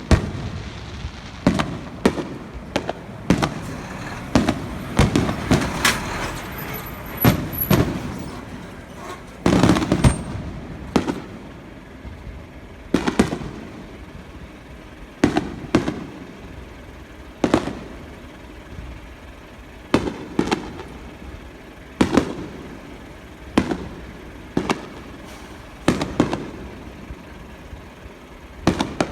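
Fireworks shells bursting: a long series of sharp booms, each with a rumbling echo. The booms come thick and fast with a crackling hiss in between for roughly the first ten seconds, then settle to one or two about every two seconds.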